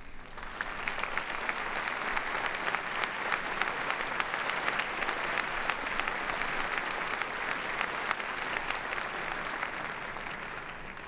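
Large audience applauding, the clapping building up within the first second and thinning out near the end.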